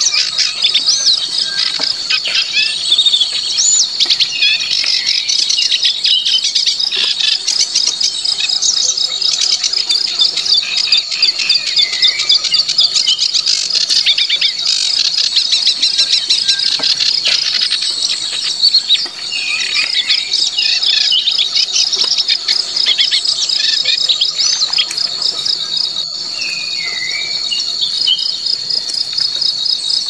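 Steady, high-pitched insect trilling made of many quick pulses, with small birds giving short chirps and gliding whistled notes over it at intervals.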